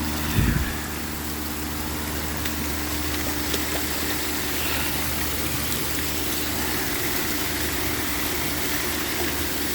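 Pool drain pump running with a steady motor hum, under a constant hiss of rain and wind. There is a loud low thump about half a second in.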